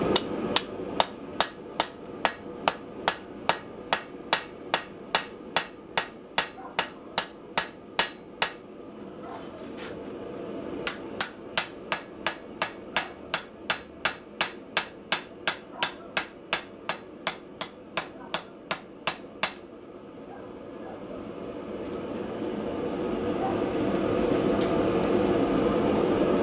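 Hammer striking a red-hot bar of cable Damascus steel on an anvil while forging out a rapier blade: two runs of even, ringing blows, about three a second, with a pause of about two seconds between them. After the blows stop, a steady rushing noise swells near the end.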